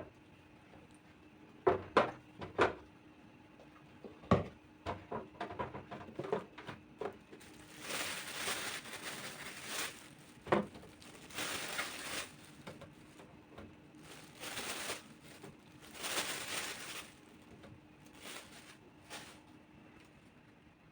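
Kitchen handling sounds while a refrigerator's vegetable crisper is organised: scattered knocks and clicks of items and containers being set down, with several noisy stretches a second or two long, over a faint steady hum.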